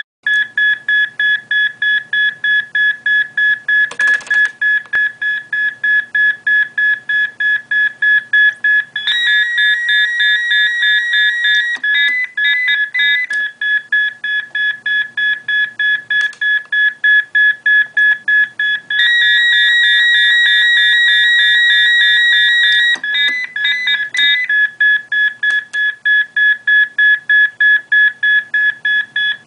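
Cardiac monitor-defibrillator beeping once per heartbeat, about three beeps a second, tracking a supraventricular tachycardia near 190 beats per minute. Twice, a continuous warbling charging tone runs for about three seconds, then gives way to a quicker ready alert as a synchronized shock is given. The fast rhythm beeping carries on after each shock, because the low-energy cardioversion did not convert the rhythm. A short burst of noise comes about four seconds in.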